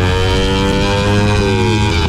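Parallel-twin 250 cc sport-motorcycle engine running under way, its pitch climbing gently, then dropping near the end as the revs fall.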